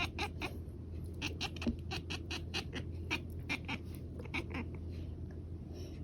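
Tortoiseshell cat chattering: runs of rapid, clicky chirps, about five a second, that stop about five seconds in. This is the excited prey-chatter of a cat watching a dragonfly it wants to catch.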